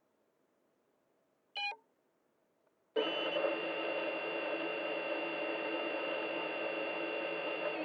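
An FPV quadcopter's brushless motors: a brief electronic beep about one and a half seconds in, then about three seconds in the motors start spinning at a steady idle hum, as when the drone is armed before takeoff.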